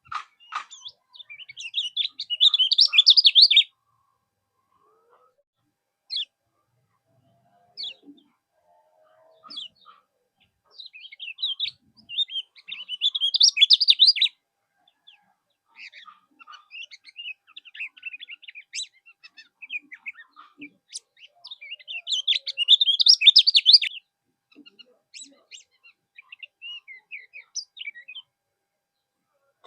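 Common iora (kecial kuning) singing in three loud bursts of fast, high chattering, about ten seconds apart. Scattered short chirps fill the gaps between them. This is a masteran recording, played to caged songbirds so they learn and answer the song.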